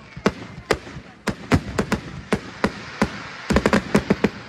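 Fireworks going off in a fast, uneven series of sharp bangs as shells launch and burst overhead, with a quicker run of bangs near the end.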